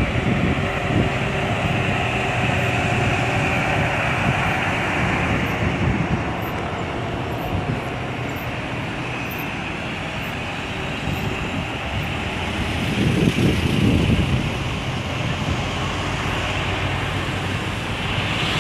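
Heavy road vehicles passing, engines and tyres making a steady rumble, with a louder vehicle going by about two-thirds of the way through.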